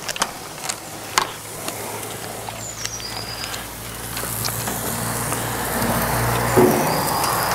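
Gas grill sizzling softly, with scattered crackles and pops of fat, under a low steady hum that swells from about halfway and eases near the end.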